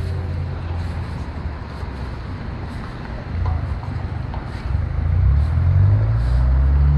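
A motor vehicle engine on the street runs as a low rumble, then rises in pitch and gets louder about five seconds in as it speeds up.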